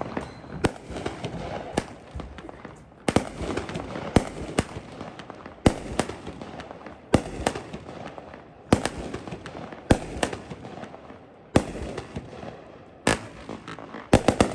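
Tako Timberline 200 gram consumer fireworks cake firing: sharp shots and bursts about once a second, with crackling between them.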